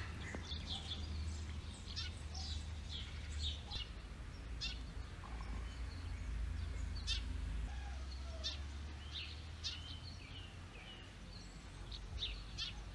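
Small birds chirping outdoors, many short calls scattered throughout, over a steady low rumble.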